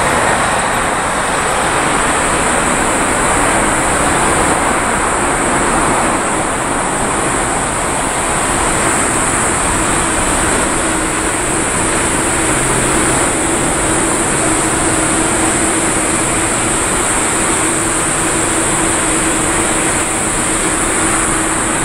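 Boeing 777 freighter's GE90 jet engines at takeoff thrust: a steady, loud rushing noise as the aircraft rolls, lifts off and climbs away, with a steady low tone joining about halfway through.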